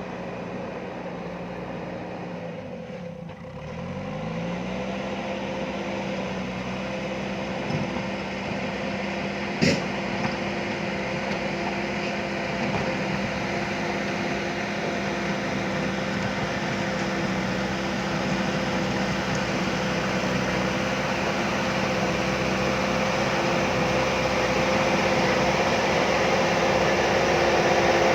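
JCB backhoe loader's diesel engine running steadily. About three seconds in, its pitch drops sharply and climbs back, and there is a single sharp click about ten seconds in.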